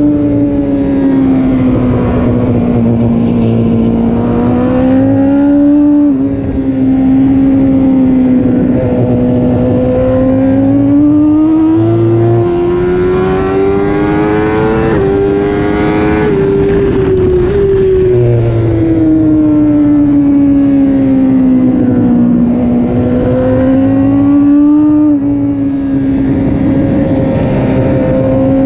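BMW S1000RR's inline-four engine held at high revs under hard riding, heard from the bike itself together with wind rush. The engine note swells and sags slowly as the bike accelerates and slows, with a few short steps where it changes gear.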